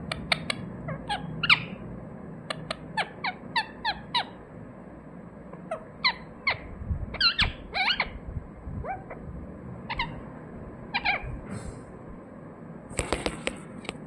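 Indian ringneck parakeet giving short, sharp chirping calls in quick runs of several at a time, with brief pauses between the runs.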